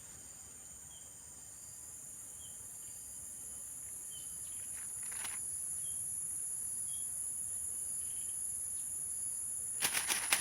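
Steady shrill chorus of insects, high-pitched and growing louder over the first few seconds, with short faint chirps repeating about once a second. A few sharp clicks come near the end.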